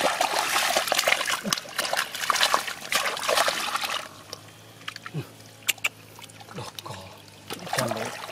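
Hands splashing and sloshing through shallow muddy water, busy for about four seconds, then quieter with a few sharp clicks.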